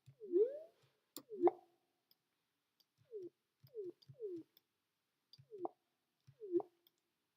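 Synthesized water-drop pops from a Native Instruments Massive software synth, each a short plop with a quick pitch glide. About seven come at irregular intervals as the patch's envelope and filter settings are tweaked toward a raindrop sound.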